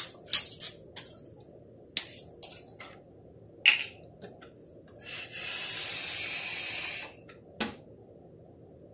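Plastic screw cap on a bottle of Hershey's chocolate milkshake being twisted open and handled: a series of sharp clicks and crackles. From about five seconds in comes a steady hiss lasting about two seconds, then one more click near the end.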